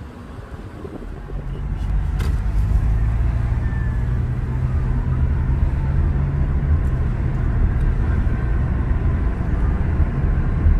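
A vehicle running with a steady low rumble that swells up about a second in and then holds, with a single sharp click about two seconds in.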